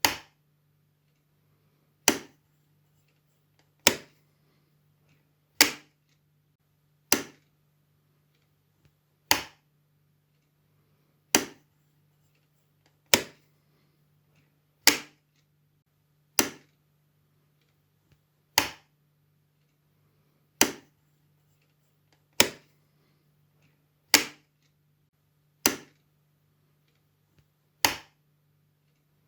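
Wall light switch clicking on and off, one sharp click about every two seconds, sixteen clicks in all.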